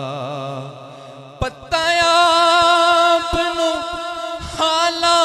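A male voice singing a Punjabi naat through a microphone, in wavering, ornamented phrases. About two seconds in it rises into a long held note, with short low knocks sounding underneath.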